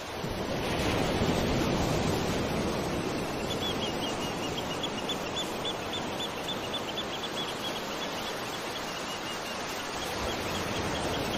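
Ocean surf washing on a beach, a steady rushing, with a bird chirping rapidly from about three seconds in.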